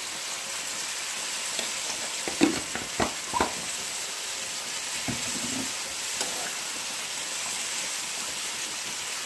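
Chopped tomatoes and onions sizzling in hot oil in a frying pan, stirred with a metal spoon, with a few short knocks and scrapes of the spoon about two to three seconds in and again around five seconds.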